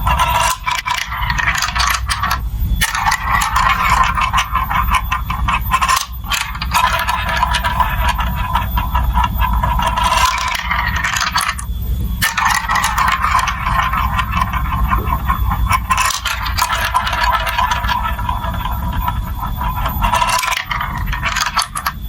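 Marbles rolling and clattering down a plastic building-block marble run track: a dense stream of clicks and rattles over a continuous rolling sound, with a few short lulls.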